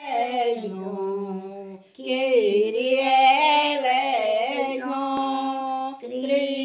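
A woman singing a Portuguese devotional hymn solo, without accompaniment, in long held notes, with a brief breath about two seconds in.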